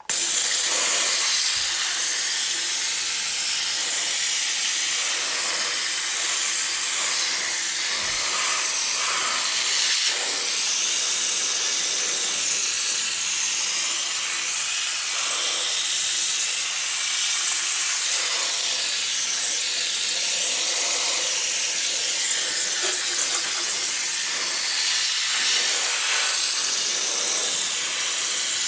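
Harbor Freight air-powered engine cleaning gun spraying degreaser onto a small-block 350 engine block: a loud, steady hiss of compressed air and spray that starts suddenly.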